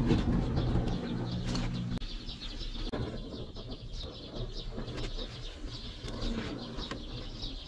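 Birds calling in the background, many short high calls scattered through, with a low steady hum during the first two seconds.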